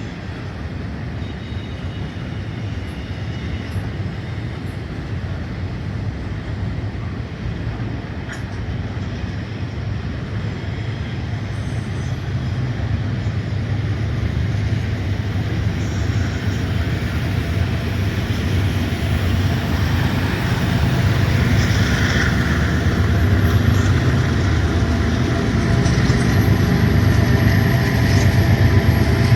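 Diesel-electric freight locomotives approaching, their low engine rumble growing steadily louder.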